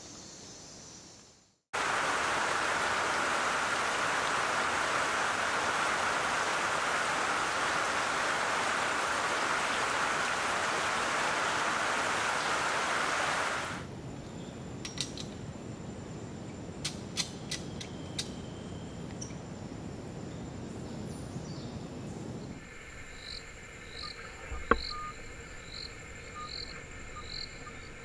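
Tropical forest ambience across several cuts. A loud, even hiss runs for about twelve seconds, then gives way to a quieter background with a few sharp clicks. Near the end come steady insect trilling and a short high chirp repeating a little faster than once a second.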